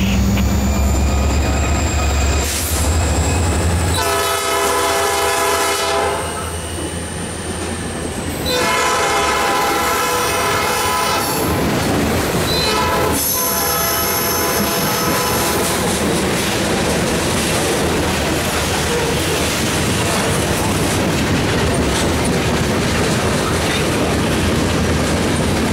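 A Norfolk Southern freight train led by two EMD SD40-2 diesel locomotives passing close by. The locomotives' engines rumble, and the air horn sounds two long blasts, about four and nine seconds in. Then comes a steady clatter of wheels over the rail joints as the mixed freight cars roll past, with a brief high wheel squeal around the middle.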